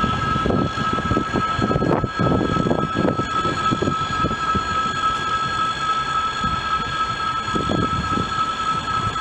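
ES2G "Lastochka" electric train pulling away, with a steady high-pitched whine over the uneven rumble of its wheels on the rails.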